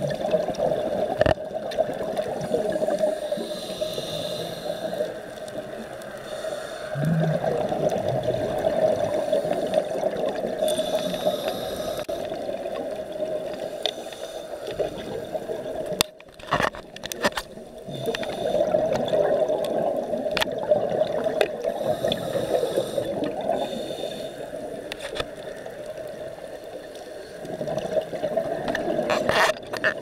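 Scuba regulator exhaust bubbles heard underwater through the camera: a gurgling, bubbling rush that swells and eases with each breath, with a brief lull about halfway through.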